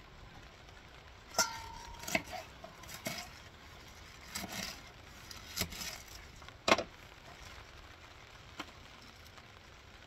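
Scattered knocks and clatters of kitchenware being handled during sauerkraut preparation, about seven in irregular succession. The loudest comes a little past the middle. An early knock rings briefly with a clear tone.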